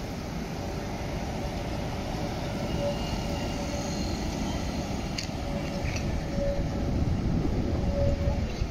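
A 1963 La Brugeoise-built PCC tram passing close by at low speed: a steady rumble of wheels on rail, with a whine that comes and goes and a few light clicks in the second half.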